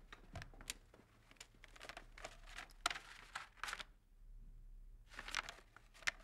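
Faint rustling and crinkling of stiff paper or parchment as documents are handled, in a run of short crackles, a pause about four seconds in, then a last cluster.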